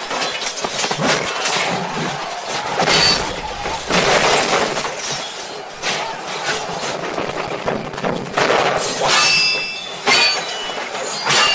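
Movie battle sound effects: a dense run of crashes, smashing and heavy impacts, with a few ringing metal clangs after about nine seconds.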